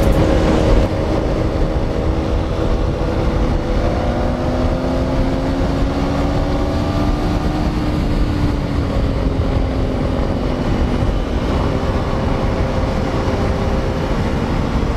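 Motorcycle engine running at highway speed under heavy wind rush on the bike-mounted microphone. The engine note climbs gently as the bike accelerates, then eases off and drops about two-thirds of the way through.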